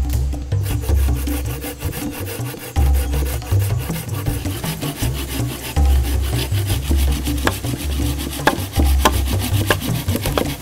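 Wood being sawn in quick repeated strokes, over background music with a deep bass line. Near the end come several sharp knocks, a knife being hammered into a log with a wooden baton to split it.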